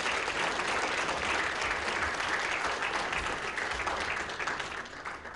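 Audience applauding, a dense, steady patter of many hands clapping that begins to fade near the end.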